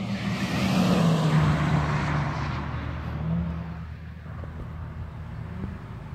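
A sports car passing at speed on a race track. Its engine and tyre noise swell to a peak about a second in, then fade away as it goes off down the track.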